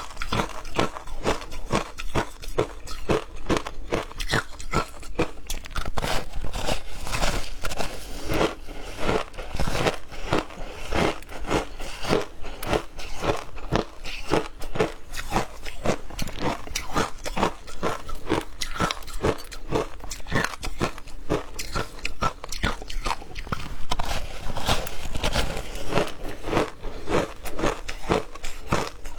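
Ice being bitten and crunched between the teeth, close up, in quick irregular crunches that run on without a break.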